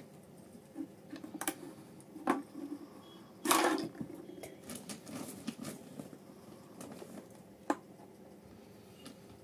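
Toy kitchen things, plastic cups, pots and a Pepsi tin, being handled and set down on a table: scattered light knocks and clicks, the loudest a longer clatter about three and a half seconds in.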